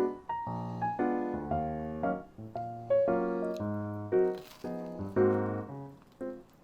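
Background music: a light melody of short struck keyboard notes, one after another, each fading away.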